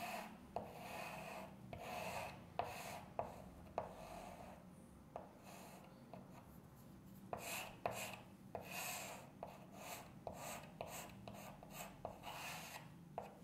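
Chalk drawing on a chalkboard: a run of faint scratchy strokes of uneven length, many starting with a short sharp tick as the chalk meets the board.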